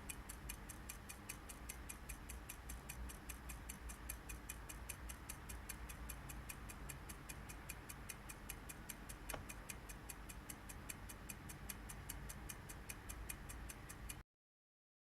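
Fast, even ticking at about five ticks a second over a low steady hum; it cuts off suddenly near the end.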